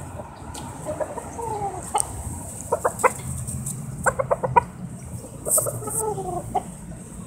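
Roosters clucking: quick runs of short clucks about three and four seconds in, with a few falling calls between them.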